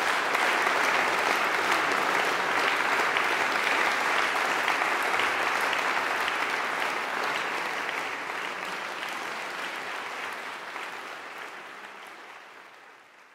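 Audience applauding steadily, a dense patter of many hands clapping. It fades gradually through the second half and dies away at the end.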